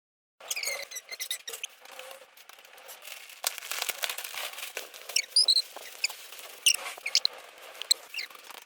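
A string of short, high squeaks that slide up and down in pitch, over a light background hiss.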